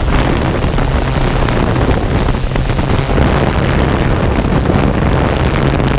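A camera drone's rotors humming steadily under heavy wind buffeting on the microphone.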